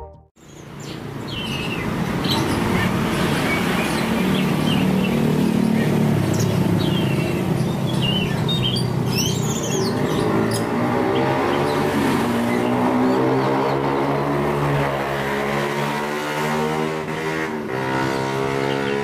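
Oriental magpie-robin (kacer) giving short chirps and whistled notes, mostly in the first half, over the steady hum of a running motor whose pitch shifts slowly.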